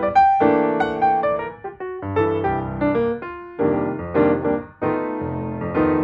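Background piano music from iMovie: a gentle run of struck notes and chords that ring and fade.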